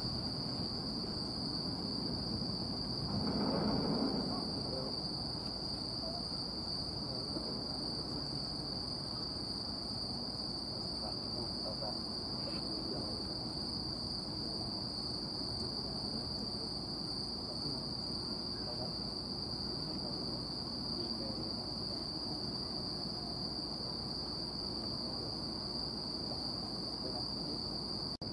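Crickets chirring in one unbroken high-pitched trill over a low background rumble, with a brief swell of rumbling noise about three seconds in.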